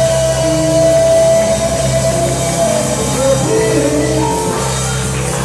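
Live church band music: a keyboard holds long sustained chords over a steady bass line, changing to new chords about halfway through.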